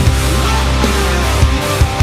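Background music: heavy rock with distorted guitar and a steady drum beat.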